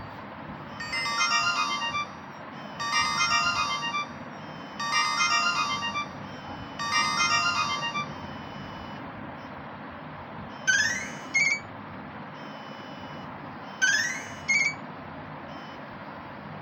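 Nokia mobile phone ringtone: a short melodic phrase of bright electronic notes played four times, about two seconds apart. Later come two rising swoop tones a few seconds apart, each followed by a short blip.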